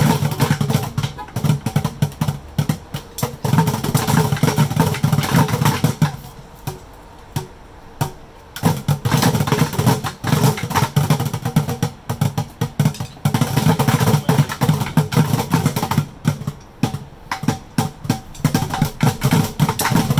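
Group bucket drumming: many drumsticks beating on orange plastic five-gallon buckets in a dense, rapid patter of hollow hits. The drumming falls away about six seconds in and picks up again near nine seconds.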